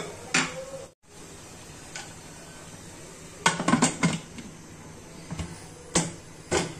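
Metal pressure cooker lid clanking against the pot as it is set on and fitted: a few sharp metal knocks, a cluster about three and a half seconds in and two more near the end.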